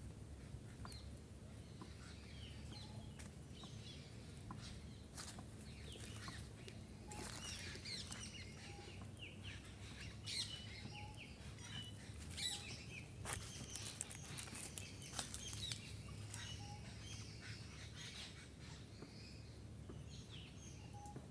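Small birds chirping and twittering, many short high calls overlapping, with a lower short note repeated every few seconds. Intermittent crackles of dry leaves underfoot run alongside.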